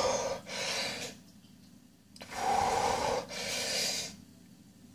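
A man breathing hard through the mouth: two pairs of heavy, noisy breaths in and out, the second pair about two seconds in. He is panting from the burn of a green Carolina Reaper chili.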